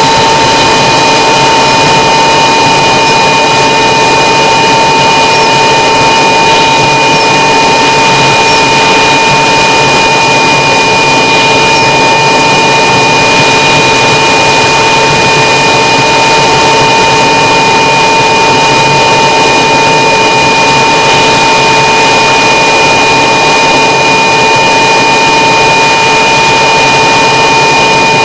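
Small propeller aircraft's engine running at high power on the ground run, heard from inside the cockpit. It makes a loud, unchanging drone with a steady high whine over it.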